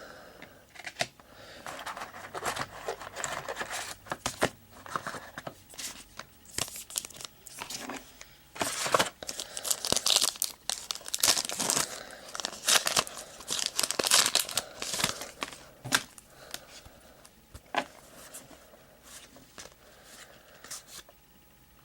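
Trading card pack wrappers and packaging crinkling and tearing in irregular bursts as packs are ripped open and cards handled. The crinkling is busiest through the middle and thins out to a few scattered crackles near the end.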